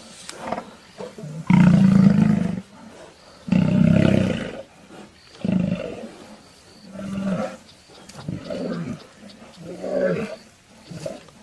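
Lions roaring in a fight: two long, loud roars about one and a half and three and a half seconds in, then a run of shorter, weaker calls.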